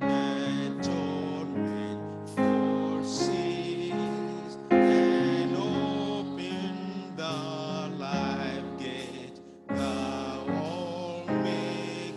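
Gospel worship music led by keyboard: sustained chords struck and changing every second or two, each fading before the next.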